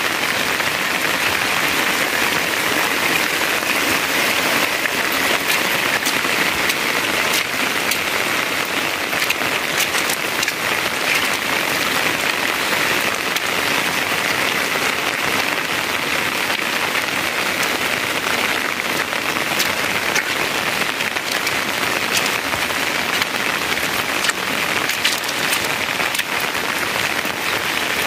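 Rain falling, a steady even hiss with many small ticks through it.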